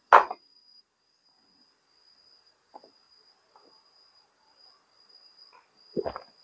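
Crickets trilling, a steady high-pitched chirr. Two short loud noise bursts cut across it, one at the start and one near the end, with a few faint clicks between.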